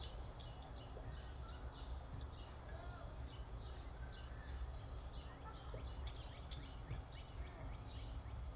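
Faint handwork with an Allen wrench, tightening the bolts on an aluminum breather plate: a few light clicks over a low steady hum.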